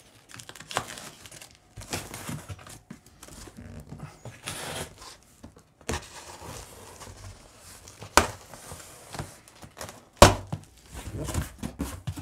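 A cardboard shipping box being handled and opened by hand: scraping and rustling with tearing of tape and cardboard, and a few sharp knocks, the loudest about eight and ten seconds in.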